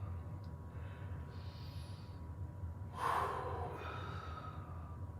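A person breathing audibly through a decompression-breathing repetition: a hissing inhale about a second and a half in, then a stronger, forceful breath out at about three seconds. A steady low hum runs underneath.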